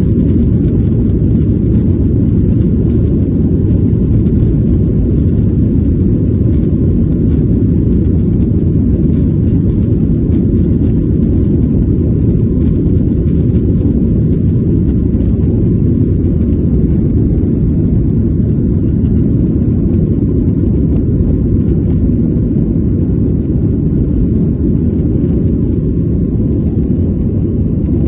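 Boeing 737-900 cabin noise during takeoff: a loud, steady low rumble of the CFM56 engines and airflow, heard from inside the cabin.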